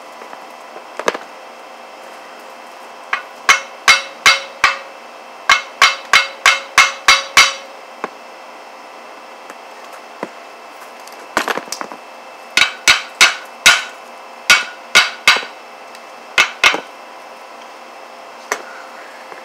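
Hammer blows on a 1958 Plymouth's steel torsion bar and lower control arm, knocking them apart to fit new bushings. The blows come in two runs of about a dozen sharp metallic strikes each, roughly three a second, each ringing briefly, with a pause of a few seconds between the runs.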